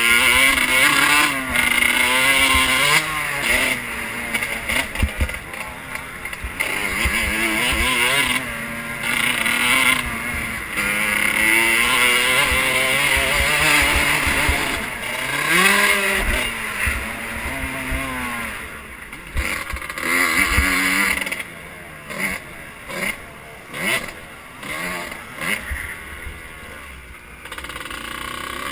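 Motocross bike engine heard onboard, revving up and dropping back again and again as the rider works the throttle and gears. Over the last third the throttle comes in short blips, and low buffeting from wind on the microphone runs underneath.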